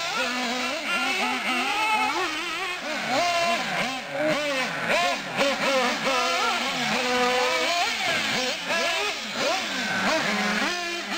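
Two radio-controlled off-road cars racing, an Associated RC8 1/8-scale buggy and an Ofna short course truck. Their motors rev up and down over and over, with two high pitches that rise and fall and overlap.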